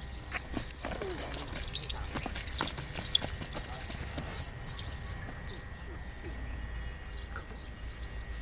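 Gir cattle moving about, hooves clopping unevenly on hard ground for the first few seconds, then quieter.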